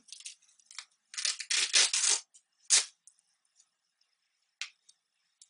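Rustling as a folded black-and-green fabric picnic travel mat is pulled out and unfolded, with several loud bursts of rustling between about one and three seconds in, then a couple of small taps.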